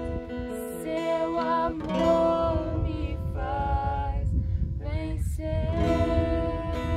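Acoustic guitar strummed while two young men and a young woman sing a worship song together.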